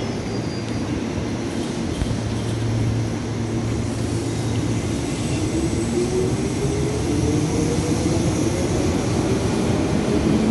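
KRL Commuter Line electric train pulling away from the platform, a steady rumble with its traction motors' whine rising in pitch as it gathers speed.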